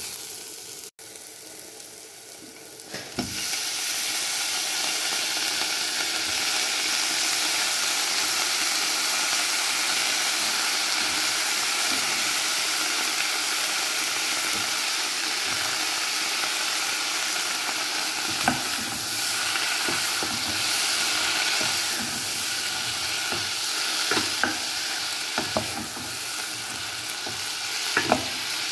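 Vegetables frying in a hot nonstick pan and stirred with a wooden spoon. About three seconds in, the sizzle turns into a loud steady hiss as broccoli and carrot pieces join the onions and cashews, and in the second half the spoon knocks against the pan now and then.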